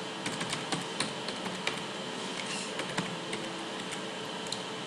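Computer keyboard typing: a quick run of key clicks in the first second and a half, then a few single taps, over a steady background hiss.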